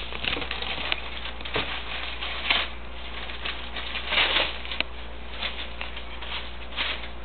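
Rustling, scraping and tapping of cardboard parts boxes being handled and a part being taken out, in irregular short bursts over a steady low hum.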